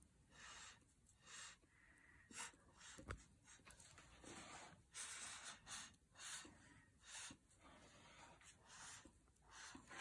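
Faint short puffs of breath blown through a straw onto wet poured acrylic paint, about one a second, with a single light tap about three seconds in.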